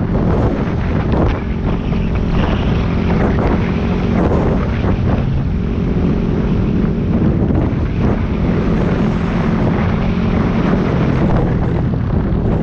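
Yamaha WR250X's 250 cc single-cylinder four-stroke engine running steadily at cruising speed, under heavy wind buffeting on the microphone.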